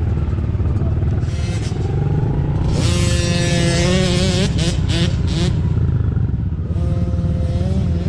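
Mini dirt bike engines running over a steady low rumble. One bike revs up to a steady pitch about three seconds in, and another does so near the end.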